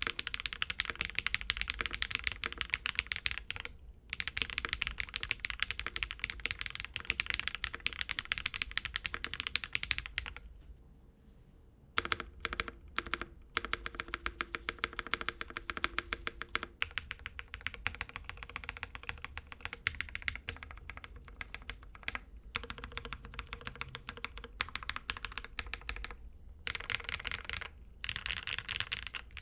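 Typing on a Mode 65 mechanical keyboard with a brass plate, lubed KTT HaluHalo linear switches and GMK keycaps: fast runs of keystrokes, a pause of about a second and a half a third of the way in, then slower, sparser keystrokes before fast typing picks up again near the end.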